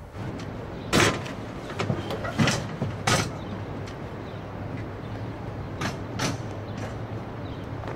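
A van's doors banging and clattering: three loud knocks in the first few seconds and two softer ones later, over a steady low vehicle hum.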